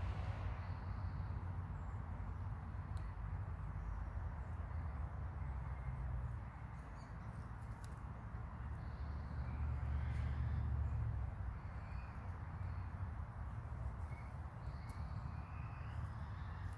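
Hens dust bathing, with faint short chirping calls and a few soft clicks over a steady low rumble.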